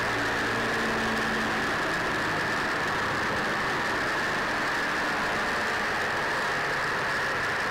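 Steady in-flight noise inside the glazed nose of a North American B-25 Mitchell bomber: the drone of its two Wright R-2600 radial engines mixed with the rush of air past the nose.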